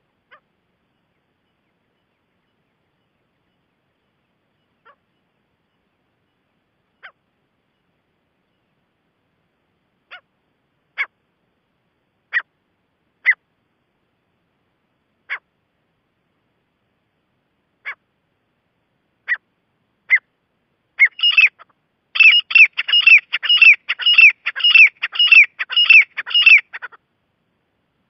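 Gray francolin calling: single sharp notes a second or more apart that grow louder, then, about three quarters of the way in, a fast run of repeated calls, two or three a second, that stops shortly before the end.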